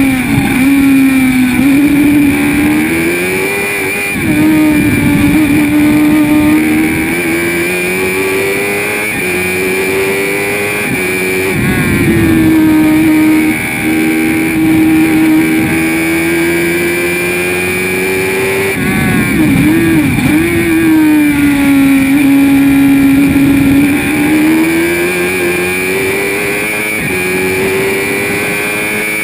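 Spire GT3 sports racing car's engine at racing speed, heard from the cockpit: the note climbs steadily and drops at each upshift, about 4 s and 11 s in, then dips and blips on downshifts under braking around 19–20 s before pulling up through the gears again. A steady high whine sits over the engine throughout.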